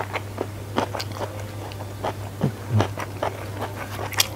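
Close-miked chewing of a mouthful of rice with sambal petai: wet mouth clicks and smacks, a few each second, over a steady low hum.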